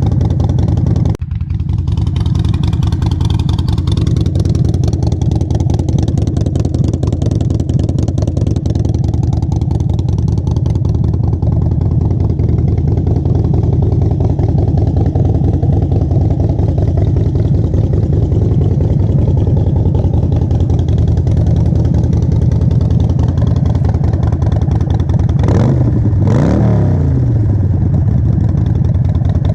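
Harley-Davidson Sportster Forty-Eight's air-cooled 1200 cc V-twin idling steadily through Vance & Hines Short Shots Staggered exhaust pipes. About a second in the sound briefly dips, and near the end the throttle is blipped twice, the pitch rising and falling quickly each time.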